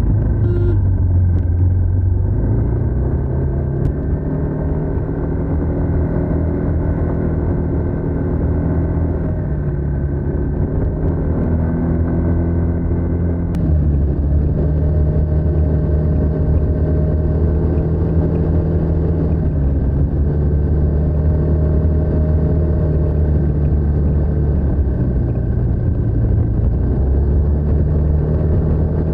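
TVS NTorq 125 scooter's single-cylinder four-stroke engine through its stock exhaust, running under way; the engine note rises and falls several times with the throttle.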